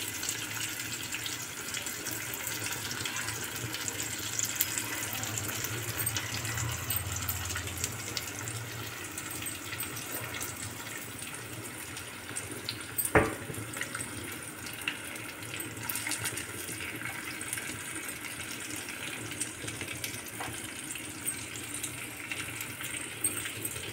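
Whole stuffed brinjals frying in mustard oil in a pan: a steady sizzle with fine crackling, and a single sharp tap about thirteen seconds in.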